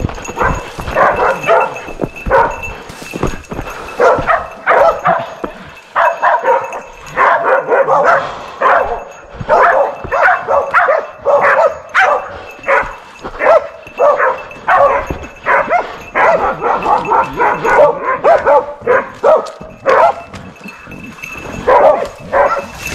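Hunting dogs barking rapidly and without let-up, the excited barking of hounds baying a wild boar.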